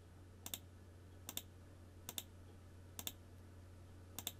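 Clicking on a computer while a poker hand replay is stepped through: five crisp clicks, about one a second, each a quick press-and-release pair, over a faint steady hum.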